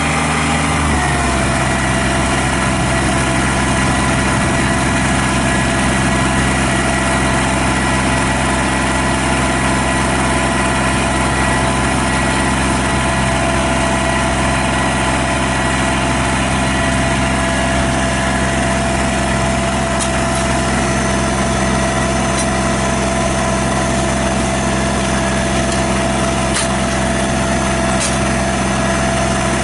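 Kubota BX23S three-cylinder diesel engine running steadily. Its engine speed drops a little about a second in and then holds.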